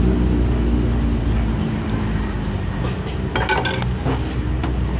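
Street noise: a vehicle engine running close by, its steady low hum fading away about one and a half seconds in, then a quick cluster of clinks of dishes or glass about three and a half seconds in.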